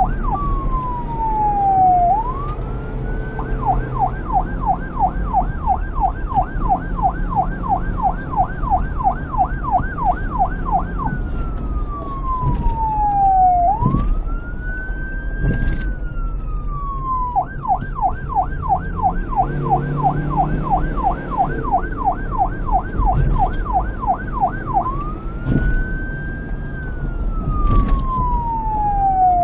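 Electronic police siren switching back and forth between a fast yelp, about four quick up-and-down sweeps a second, and slow wail sweeps that fall and rise over a couple of seconds each. A steady low rumble runs underneath.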